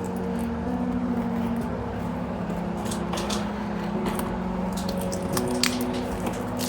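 Cardboard retail box being opened by hand: scattered clicks, scrapes and rustles of the flaps and packaging. Underneath runs a steady low tone that steps in pitch a few times.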